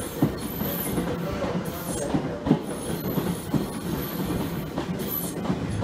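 Seibu 2000 series electric train rolling slowly past the platform, its wheels knocking irregularly over the rail joints under a steady rumble, with short high squeals from the wheels.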